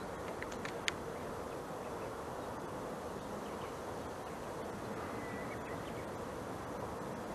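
Steady outdoor background noise: an even hiss with a faint low hum, broken by a few light clicks in the first second.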